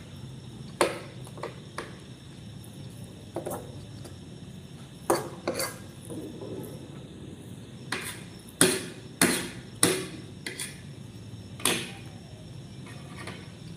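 Cutlery clinking and scraping against a dinner plate as food is scooped up. About a dozen short, irregular clicks, most closely bunched just past the middle.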